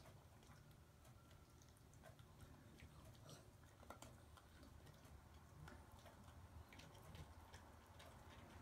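Faint, irregular crunching clicks of a small dog chewing hard biscuit treats, over a low steady room hum.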